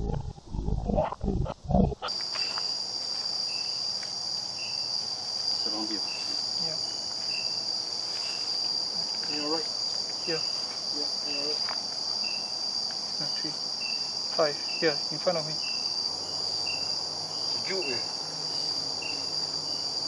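Night chorus of crickets and other insects: a steady high-pitched drone with a short chirp repeating about every two-thirds of a second. It opens with a loud sound-effect stinger that cuts off about two seconds in.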